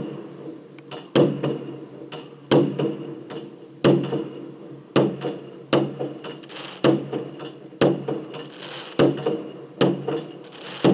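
Fireworks bursting in a steady series, one bang about every second with a short echo after each, heard through window glass. A steady hum runs underneath.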